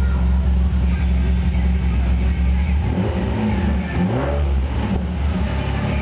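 Car engine running, heard from inside the cabin, with its pitch dipping and rising again around the middle as the revs change.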